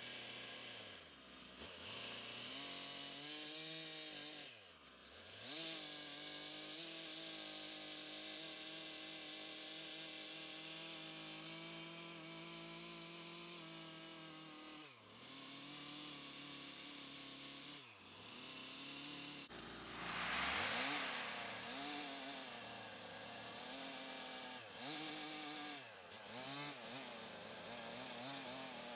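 Stihl two-stroke chainsaw cutting into a log to hollow out a saddle notch, its engine pitch dropping and recovering several times as the bar plunges and sweeps through the wood. In the second half the saw is skimmed over the notch's surface to finish it smooth, running louder and brighter.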